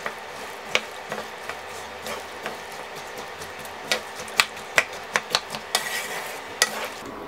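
A wooden spatula stirring chickpeas and mashed potato in a stone-coated nonstick wok, with irregular scrapes and light knocks against the pan. Under them is a steady low sizzle from the pan on the heat, and the knocks come thicker in the second half.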